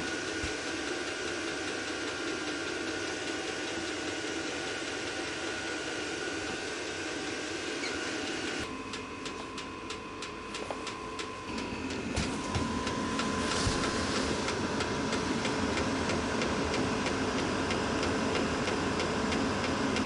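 Diesel air heater running steadily: a continuous hum of its fan and burner with a thin steady whine. About nine seconds in the whine drops to a lower pitch and the sound changes, with a few short clicks.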